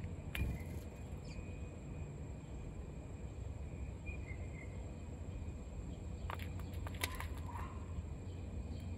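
Outdoor ambience with a steady low rumble and a few faint, short bird chirps. Around six to seven seconds in comes a quick run of sharp clicks while house sparrows feed at a foil pie pan.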